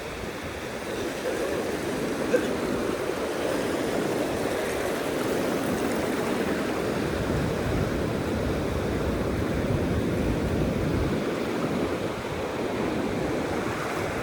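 Sea surf washing in the shallows, a steady rush of breaking and receding waves.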